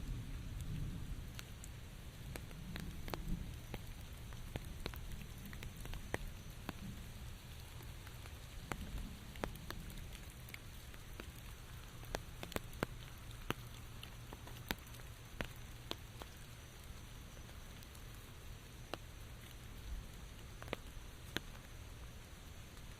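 Steady rain with individual drops landing on a surface as scattered sharp ticks over a soft, even hiss. A low rumble, louder at first, dies away over the first few seconds.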